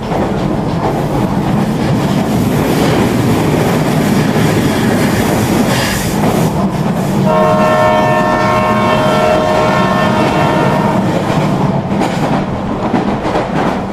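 Train sound effect: a steady rumble and clatter of a passing train, with a train horn held for about four seconds past the middle.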